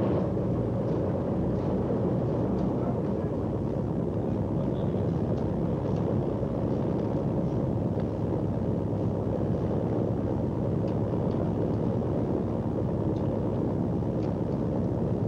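Steady low rumble of a boat's engine running, with an even noise of wind and water over it.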